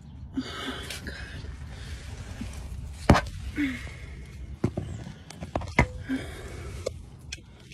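Phone handling noise and rustling while reaching in under a car wheel, with several sharp knocks and clicks, the loudest about three seconds in and another near six seconds.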